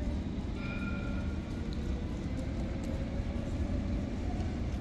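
Alstom Citadis tram running on its rails: a steady low rumble with faint light clicks, and a faint high whine about half a second in that fades after a second.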